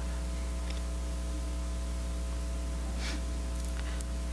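Steady electrical mains hum: a low buzz with a ladder of higher steady overtones, unchanging throughout, with a faint short noise about three seconds in.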